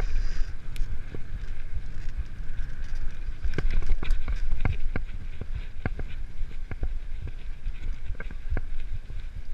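Mountain bike riding fast down a dirt trail, with a steady rumble of wind on the microphone and tyre noise. From about three and a half seconds in, a run of sharp, irregular clicks and knocks as the bike rattles over bumps.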